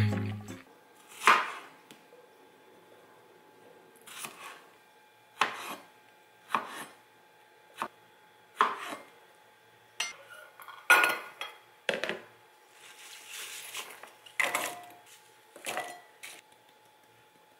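Knife cutting fruit on a plastic cutting board and cut apple pieces clattering into an enamel bowl. The knocks and clatters come one at a time, about a second apart, over a faint steady hum.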